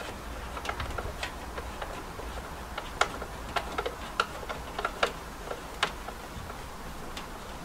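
Irregular light clicks, one every half second or so, as a small white plastic nut is turned off the tail light's mounting stud by hand.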